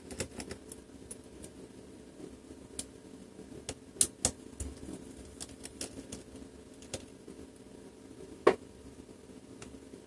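Small screwdriver undoing the tiny screws of a laptop's daughter board: scattered light clicks and ticks, with a few sharper clicks about four seconds in and a single louder one near the end.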